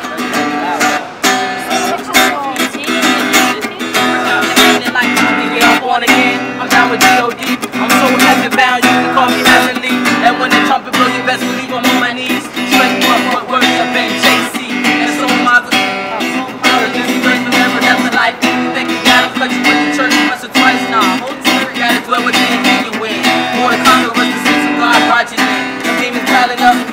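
Acoustic guitar strummed and picked in a steady, busy rhythm.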